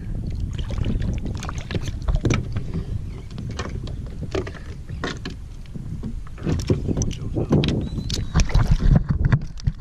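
Knocks and clatter aboard a small fishing boat, irregular and scattered, over a low rumble of wind on the microphone.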